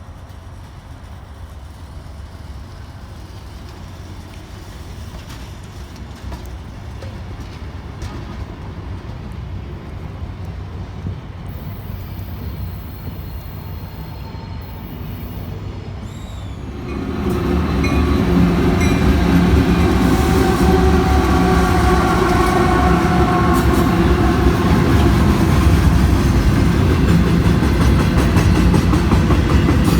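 Train approaching: a low rumble that slowly grows, then about halfway through it comes close and runs loud and steady past the microphone.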